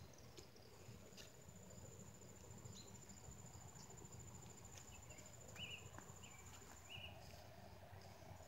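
Faint, high-pitched insect trilling, steady with brief breaks, over near-silent outdoor quiet; a few short chirps sound about two-thirds of the way through.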